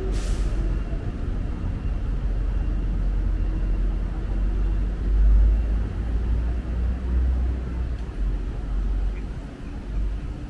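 City street traffic: a steady low rumble of passing vehicles, with a brief hiss at the start.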